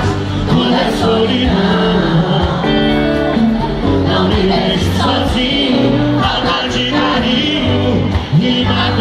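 Live sertanejo concert music: a male duo singing over an amplified band with a repeating bass line, loud and steady, recorded on a phone in the audience.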